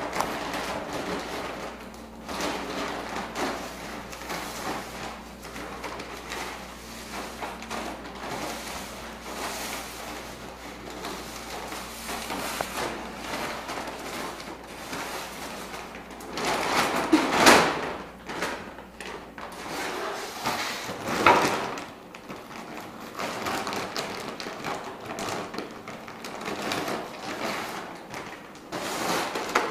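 Empty plastic dog food bag crinkling and rustling as a dog noses deep inside it and shoves it across a concrete floor, with two louder crackling bursts past the middle.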